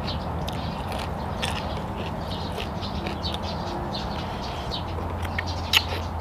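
Eating sounds: blood cockles sucked from the shell and chewed, with small wet clicks and smacks and one sharper click near the end, over a steady low hum.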